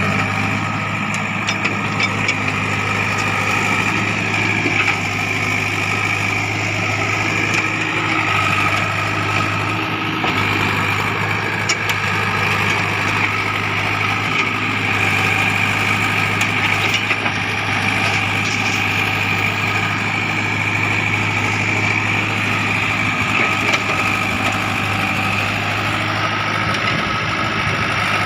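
Diesel engine of heavy earthmoving machinery running steadily, with a steady high whine over the low engine hum.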